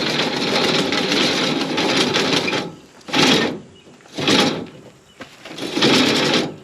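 Harsh metal scraping and rattling as a combine's sickle blade is worked through the cutter bar's guards: one long burst of about two and a half seconds, then three shorter bursts.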